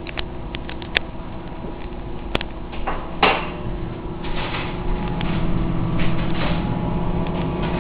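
Microwave oven running with a steady hum, louder in the second half, with a few sharp knocks, the loudest about three seconds in.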